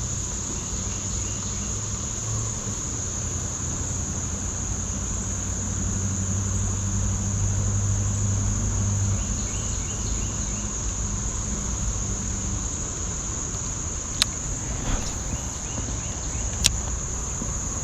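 Steady, high-pitched chorus of insects trilling without a break. A low hum sounds underneath for the first two-thirds and then fades, and two sharp clicks come near the end.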